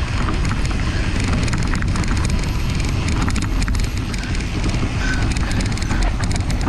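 Mountain bike riding fast along a dirt singletrack: wind buffeting the microphone, with tyres crackling over dry leaves and dirt and the bike rattling and clicking throughout.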